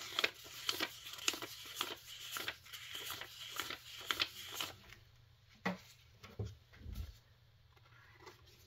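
Stack of paper prop dollar bills flicked through by hand as they are counted: a quick run of crisp paper rustles and snaps. It thins out about five seconds in to a few softer handling sounds and two light thuds.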